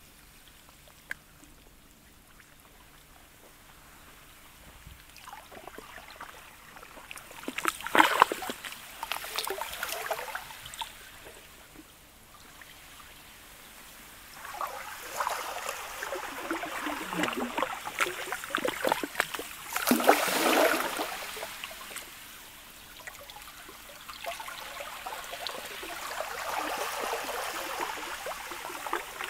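Sea ice, sludge and pancake ice, lapping against the shore in surges of crackling wash. After a quiet start there is a short surge about eight seconds in, a long, louder one in the middle, and another near the end.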